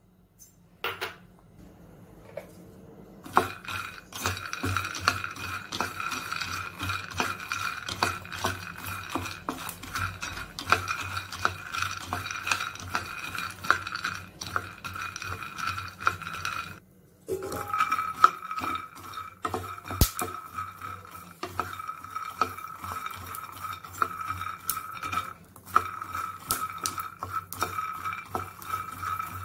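Raw peanuts dry-roasting in a small nonstick pan, stirred with a wooden spatula: a dense clatter of nuts knocking and scraping against the pan, starting a few seconds in and pausing briefly past the middle. Beneath it runs a steady high electrical whine and low hum from the induction cooktop.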